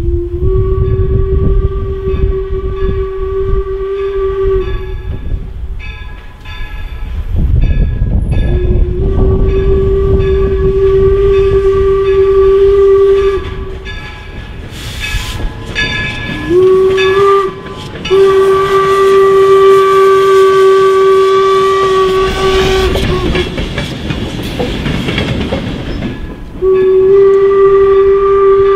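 Steam whistle of York No. 17, a replica 4-4-0 American-type locomotive, blowing the grade-crossing signal of two long blasts, a short and a long, with another long blast starting near the end. The locomotive and train rumble past beneath it.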